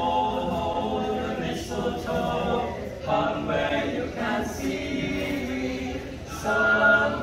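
A small group of teenage boys singing a cappella in harmony, a little louder near the end.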